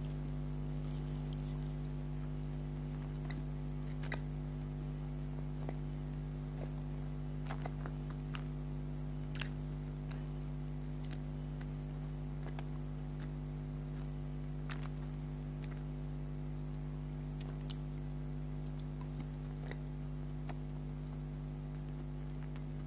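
Soft, wet chewing and mouth sounds of eating syrup-soaked gulab jamun, with scattered small clicks, the sharpest about nine seconds in, over a steady low hum.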